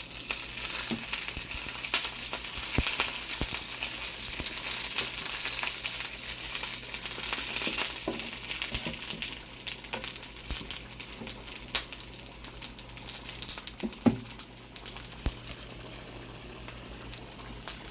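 Cut potatoes and beef sausages frying in hot olive oil in a small pan: a steady sizzle full of small crackles, with the oil spitting and popping now and then.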